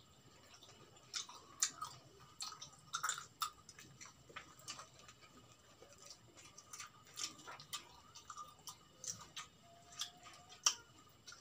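Faint eating sounds of whole fried chicken being eaten by hand: irregular crunches, lip smacks and chewing, with crust being pulled off the bird.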